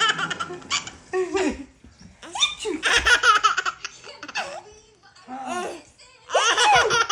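A baby laughing hard in several bouts of giggles, with short pauses between them.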